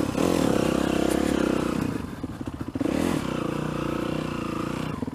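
Dirt bike engine running under throttle while being ridden. The revs ease off about two seconds in and pick back up about a second later.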